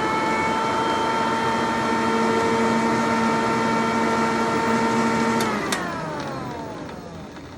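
Vacuum cleaner motor running with a steady whine, switched off with a click about five and a half seconds in, then winding down with falling pitch.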